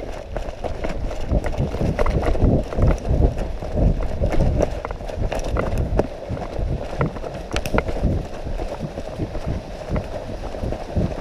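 Running footsteps thudding on a leaf-covered forest floor, heard from a head-mounted camera: a quick, continuous run of dull thuds.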